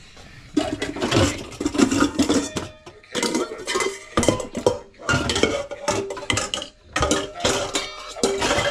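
Stainless steel mixing bowls and a saucepan clattering and clanking against each other as they are pulled out of a kitchen cupboard, with a ringing metallic note from a bowl in the second half.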